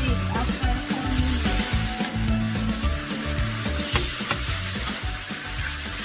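Beef steaks sizzling and frying in a stainless steel skillet as they are turned with a metal spatula, with a sharp knock of the spatula against the pan about four seconds in.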